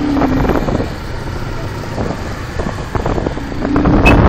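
Wind rushing over the microphone of a handheld camera on the move, with handling knocks and bumps, the loudest near the end, over road traffic noise.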